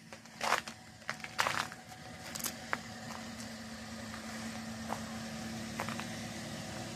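Car engine idling steadily, left running to warm up and thaw off the snow in freezing weather, growing slowly louder; a few sharp clicks or crunches in the first three seconds.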